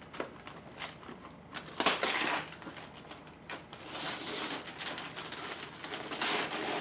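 Gift wrapping paper being torn off a large box: a short rip about two seconds in, then longer tearing and rustling through the second half, with small crackles in between.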